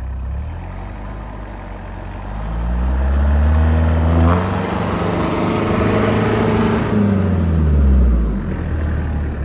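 Toyota Land Cruiser engine revving under load as the truck ploughs through deep snow on chained tyres. The engine note climbs about two seconds in, holds high, then drops back near the end, over a steady rush of noise.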